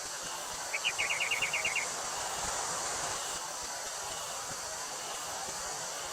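Summer countryside ambience: a steady high insect drone of cicadas over an even wind-like hiss. About a second in, a quick run of about ten short chirps cuts through for roughly one second.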